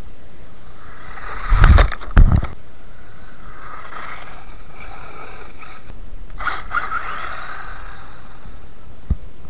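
WLtoys 12428 RC buggy's stock electric motor whining in surges as it is driven over sanded ice, with its tyres scraping on the grit. Two loud low thumps come about two seconds in.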